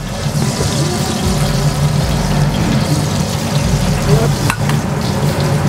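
Food frying in oil in a large metal pot, a steady sizzle over a low hum, with a single sharp click about four and a half seconds in.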